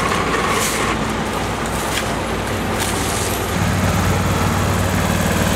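Street traffic and roadwork noise with a few brief scrapes, then about three and a half seconds in a small road roller's engine starts to be heard running steadily.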